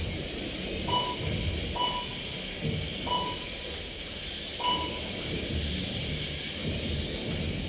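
Short electronic beeps of a race lap-counting system, four of them irregularly spaced in the first five seconds, each marking a car crossing the timing line. A low steady room din runs under them.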